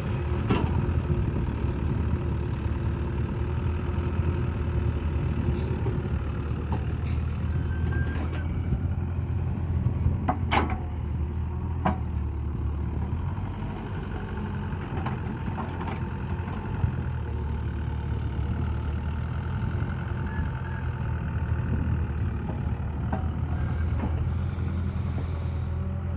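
Heavy diesel engine of a tractor or backhoe running steadily at a constant speed, with a few short sharp knocks now and then.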